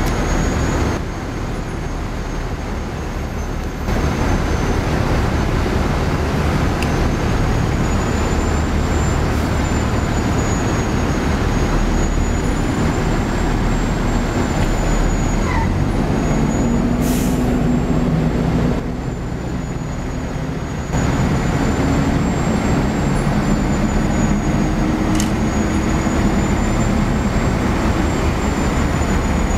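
Fire apparatus diesel engines idling steadily, with a short hiss of air a little past halfway.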